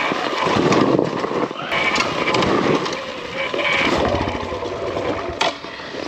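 Kawasaki KLX140RF dirt bike being bump-started down a trail: the stalled single-cylinder four-stroke engine is turned over by the rolling rear wheel and chugs unevenly without catching, along with tyres rolling over dirt and brush. The rider suspects a flooded carburettor.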